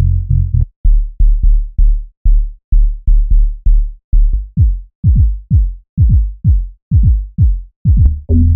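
Ambient techno sample-pack loops playing one after another: short, chopped, deep bass hits, two to three a second. About halfway through, the hits gain a falling pitch sweep, like a pitched-down kick or tom.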